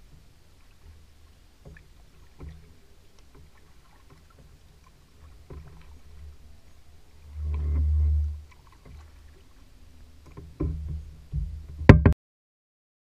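Double-bladed kayak paddle dipping and pulling through calm water, with small splashes and drips and low thumps. There is a louder low rumble about eight seconds in, and a sharp knock just before the sound cuts off abruptly near the end.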